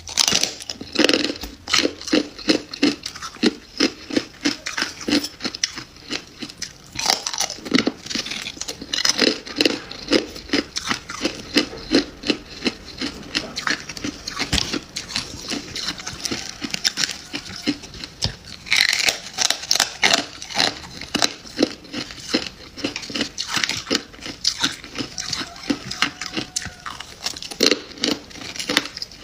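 Freezer frost being bitten and chewed: a continuous run of crisp crunches, several a second, with louder bursts of crunching now and then.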